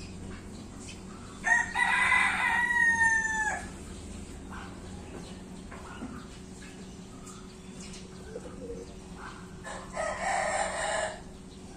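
A rooster crowing: one long call of about two seconds that dips in pitch at its end, then a shorter, rougher call near the end.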